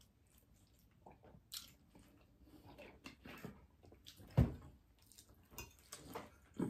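Faint close-miked eating sounds: chewing and mouth clicks with small crunches, and one louder thump about four and a half seconds in.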